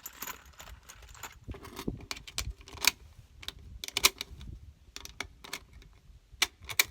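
Rifle cartridges being pushed one at a time into a magazine: a run of sharp, irregular metallic clicks and clinks of brass.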